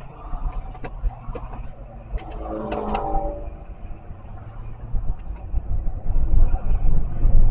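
Car on the move: a steady low rumble of engine and road noise that grows louder and gustier over the last two seconds. A brief pitched sound is heard about three seconds in.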